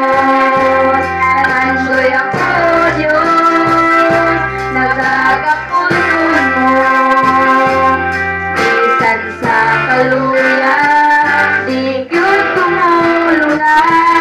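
A small group of mostly female voices singing a worship song into microphones, accompanied by electric guitar, with long held low notes underneath.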